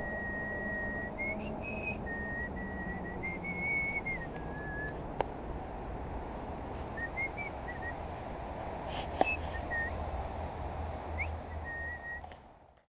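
A person whistling a slow tune of held notes that step up and down in pitch, over a steady low background rumble. Two sharp clicks about five and nine seconds in, and the sound cuts off near the end.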